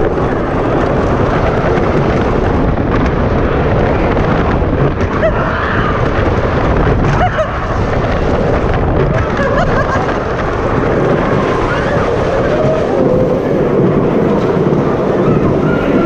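Wooden roller coaster train running along its track, heard from on board: a steady loud noise of the wheels on the track mixed with wind blowing on the microphone.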